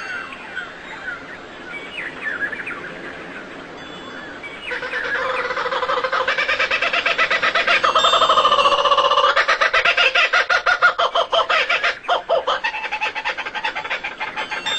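Bird calls: short chirping notes for the first few seconds, then from about five seconds in a louder, long series of rapid pulsed calls that runs to the end.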